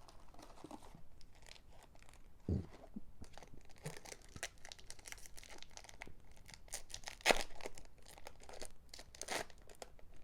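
Foil wrapper of a Japanese Pokémon booster pack being torn open and crinkled: a run of short crackles, the sharpest about seven seconds in, with a soft knock near the start.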